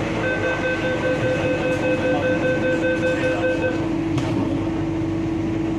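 MTR South Island Line S-train door-closing warning: a rapid beep, about four a second, for roughly three and a half seconds, then the doors shut with a knock about four seconds in. A steady hum from the train carries on under it.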